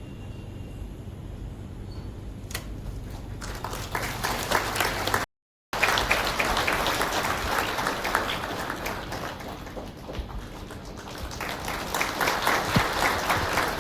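Audience applauding in a hall, starting a few seconds in and swelling again near the end, with a half-second dropout partway through.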